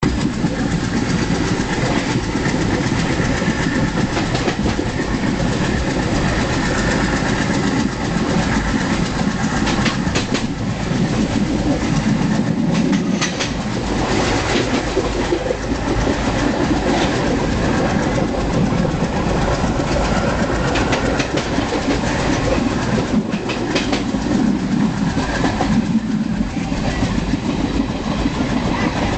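Passenger train running, heard from on board: a steady rumble with the wheels clicking over the rail joints, in clusters now and then.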